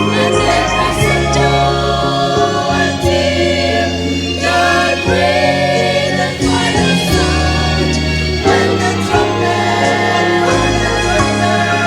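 A choir singing a Christian gospel song in harmony, with sustained chords over a steady bass line.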